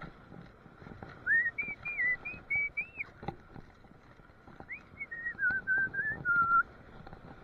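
A person whistling a short tune in two phrases of quick, clear notes, the second phrase stepping down in pitch. A few light clicks from handling fall between the phrases.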